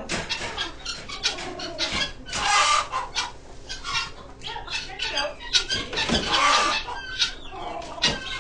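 Chickens and other fowl in a barn pen clucking and calling in short, irregular bursts, with two louder, longer stretches about two and a half and six seconds in.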